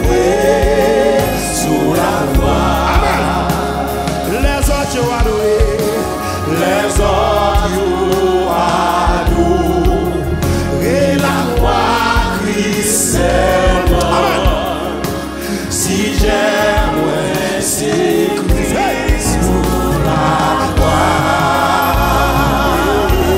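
Live gospel worship song in Haitian Creole: a male lead singer with backing vocalists over a band with a steady low bass.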